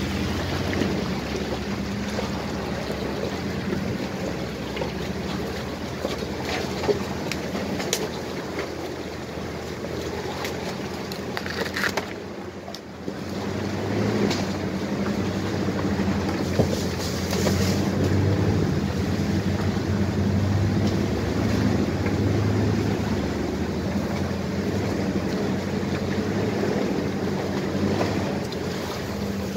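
Off-road vehicle engine running steadily. It dips briefly about halfway through, then comes back louder.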